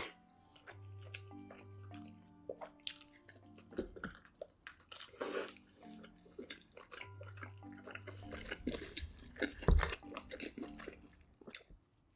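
Close-miked chewing and crunching of food, irregular wet crackles and bites, with one louder crunch near the end, over soft background music with held notes.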